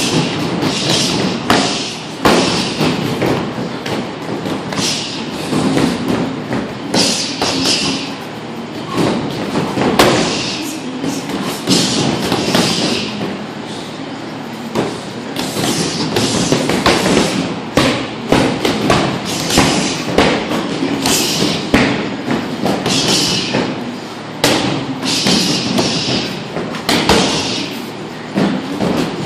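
Gloved punches and bare-foot kicks landing on a freestanding XXL heavy bag: a long series of thuds and slaps, coming in quick flurries with short gaps between combinations.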